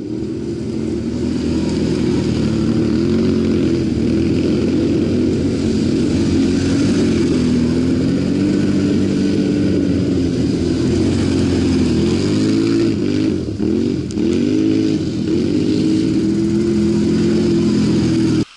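Several ATV engines revving as the quads ride past one after another, their pitch rising and falling as each one goes by. The sound cuts off suddenly near the end.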